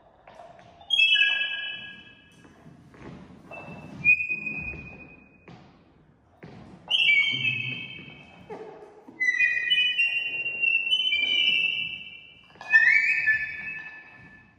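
Experimental music score: clusters of several high, whistle-like tones held together, each entering sharply and fading away, five times over, above a soft low rustling texture.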